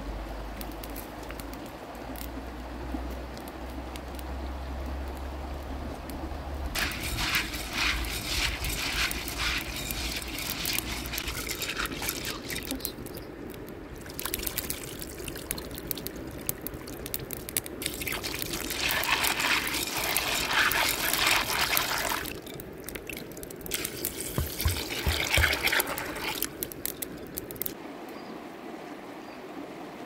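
Water pouring and splashing in several spells of a few seconds each.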